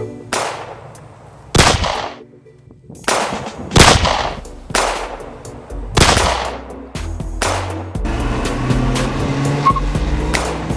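A volley of about six loud, sharp bangs like gunshots, roughly a second apart, each with a brief ringing tail, the loudest about four seconds in. A steady music track takes over about eight seconds in.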